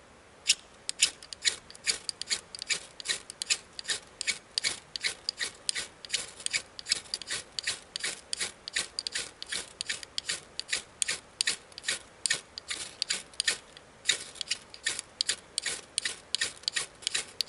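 A large ferro rod scraped hard and fast with a 1-inch spade bit, about three rasping strikes a second, throwing sparks onto petroleum-jelly-and-sawdust fire paste to light it. The strikes pause briefly near the end, then start again.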